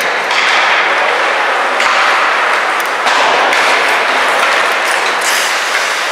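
Ice hockey play in an ice rink: a steady loud din of skates on ice and rink noise, with sharp clacks of sticks on the puck and thuds off the boards.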